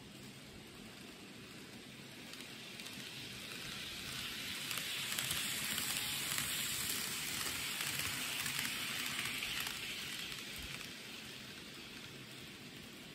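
N-gauge model train running on the layout track, a fine hissing rattle of wheels on rail and motor that grows louder as it passes close about halfway through, then fades away.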